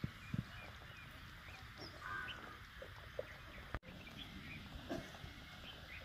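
Farmyard fowl calling faintly now and then over a steady outdoor hiss, with a short knock just after the start.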